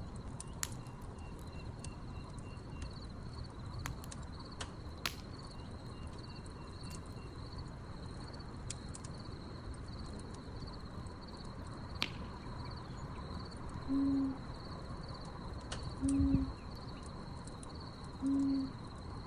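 Wood fire crackling with a few sharp pops over a steady chorus of chirping crickets. In the last five seconds an owl hoots three times, about two seconds apart, each a short low hoot.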